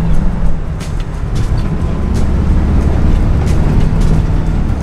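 Cabin noise inside an old Volkswagen van driving at freeway speed: a steady low drone from the rear air-cooled flat-four engine and road rumble, with a few short clicks and rattles from the body.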